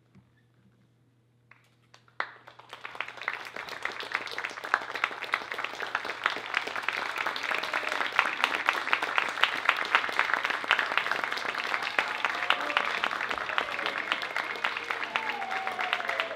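Applause: a crowd clapping. It starts after about two seconds of near silence and quickly builds into dense, steady clapping, with a few voices calling out near the end.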